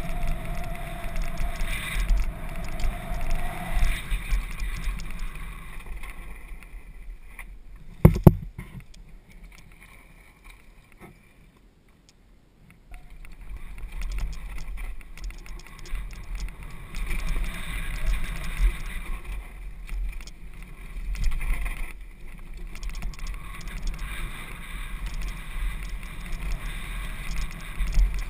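Downhill mountain bike rattling and rumbling over a rough dirt forest trail, heard from a camera mounted on the rider or bike. A sharp knock about eight seconds in, then the noise drops for a few seconds before the rattling picks up again.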